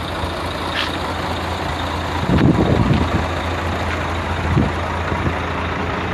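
Heavy truck engine running close by, a steady low rumble under a wash of outdoor noise, with a louder rough stretch about two and a half seconds in.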